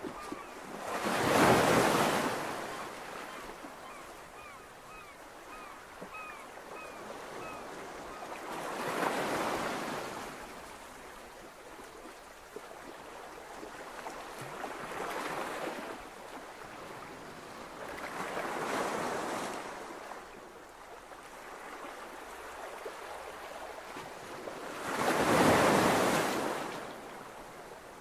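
Ocean waves washing onto a shore: five slow surges of rushing surf several seconds apart, the first and last the loudest, over a steady background hiss. A faint run of short chirps sounds in the first several seconds.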